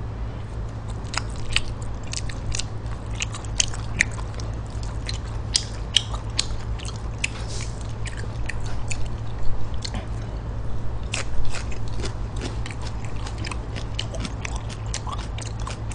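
Close-up eating of stir-fried pork intestines and vegetables: wet chewing and mouth smacks with many sharp clicks scattered throughout, over a steady low hum.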